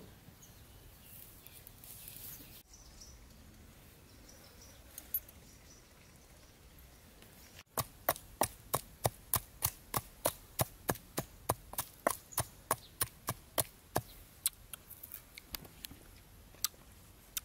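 A wooden pestle pounding chopped chilies and shallots in a bowl: sharp knocks about two and a half a second, starting about eight seconds in and growing weaker and less regular near the end.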